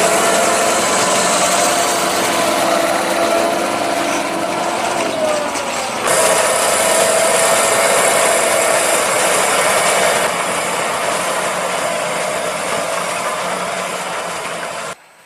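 Fendt Vario 826 tractor running steadily under load while pulling a reversible plough, with a steady engine tone over mechanical clatter. The sound cuts off abruptly near the end.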